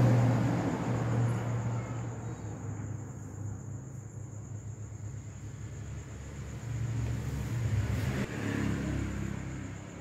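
Low rumbling hum, loudest at the start, fading, then swelling again about seven to nine seconds in.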